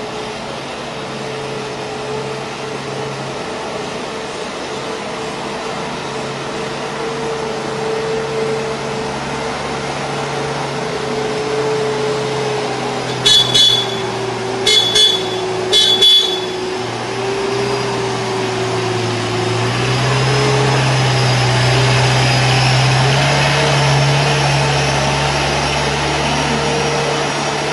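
Combilift multi-directional forklift running as it travels with a load: a steady motor drone that grows louder about two-thirds of the way through. A high electronic beeper sounds three short times around the middle.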